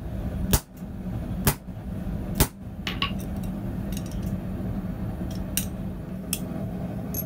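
Hammer blows on a hot punch driven into red-hot steel stock to punch the rivet hole in a tong half: three sharp strikes about a second apart, followed by lighter metal clinks as the hammer and punch are set down on the steel block. A steady low hum runs underneath.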